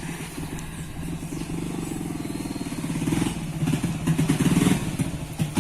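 Motorcycle engine running with a rapid low firing pulse, growing louder in the second half as it draws near.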